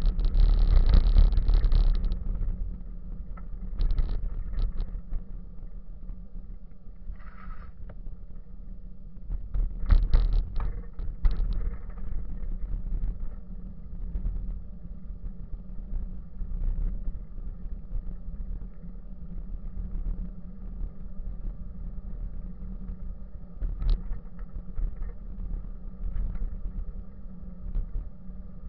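Bicycle riding over a paved path: a steady low rumble of tyres and wind on the microphone, louder in the first two seconds and again about ten seconds in, with a few brief knocks from bumps.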